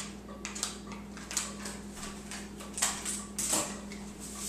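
Scissors snipping open a drink-mix packet and the packet crinkling in the hands: a string of irregular short, sharp snips and rustles.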